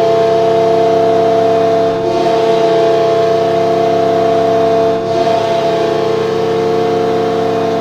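Carolina Hurricanes' arena goal horn sounding one long, steady blast, several tones held together as a chord, the signal that the home team has scored.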